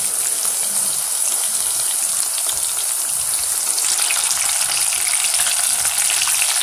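Samosas deep-frying in hot oil in a pan: a steady sizzle with fine crackling.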